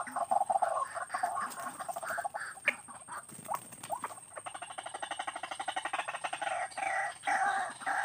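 White-breasted waterhen (ruak-ruak) calls: harsh repeated croaking notes, several a second, running into a fast rattling string of pulses a little after the middle before the separate notes resume.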